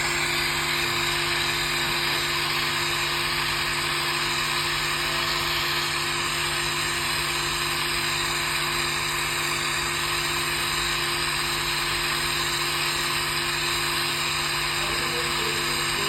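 Oxy-acetylene brazing torch flame hissing steadily on a copper suction tube, with a steady hum underneath.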